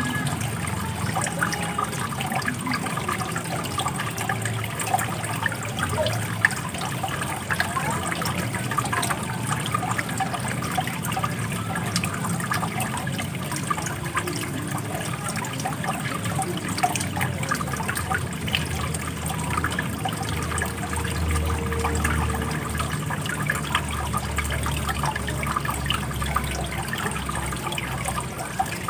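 Running water, flowing steadily with constant small splashes and trickles. A low rumble builds under it in the second half.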